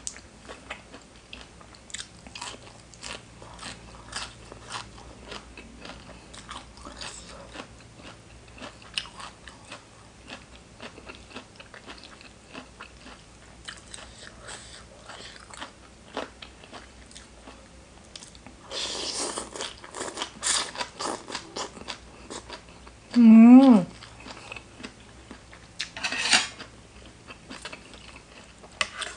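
Close-up chewing and biting with crisp crunches throughout, as the host eats spicy seafood papaya salad with raw side vegetables. About two-thirds of the way through there is a louder noisy stretch of eating. A short wavering hum of the voice follows a few seconds later.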